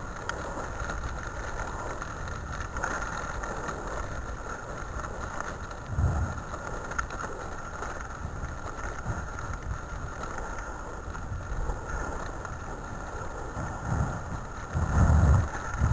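Steady rumble and rattle of a dog-team rig rolling along a gravel track behind a running husky team, with wind on the microphone. There are louder low bumps about six seconds in and near the end.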